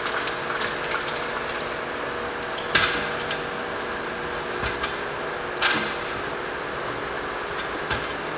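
Metal clanks and knocks from an engine being worked into a car's engine bay by hand: two sharp clanks about three and five and a half seconds in, with lighter clicks between, over a steady hum.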